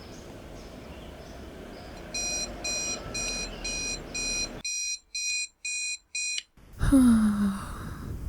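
Electronic alarm beeping in quick, evenly spaced high beeps, about two a second, starting about two seconds in and stopping about six and a half seconds in. It is followed by a loud, short rustling sound with a low tone that falls in pitch.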